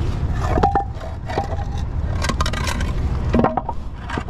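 Wooden blocks and a plywood board scraping and knocking on asphalt as they are pushed into place against a tyre: several short scrapes and knocks over a steady low rumble.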